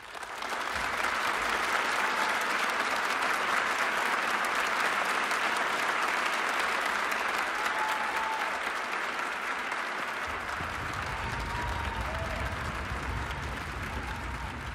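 Audience applause that breaks out suddenly and loudly as a concert band piece ends, with a few short cheers over the clapping.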